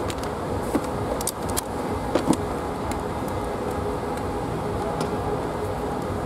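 Steady low mechanical rumble with a faint hum, and a few sharp clicks or knocks between about one and two and a half seconds in.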